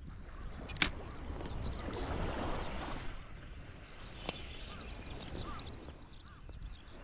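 Sea waves washing on the shore, swelling about two seconds in, with wind noise; a sharp click about a second in and a second, fainter one about four seconds in.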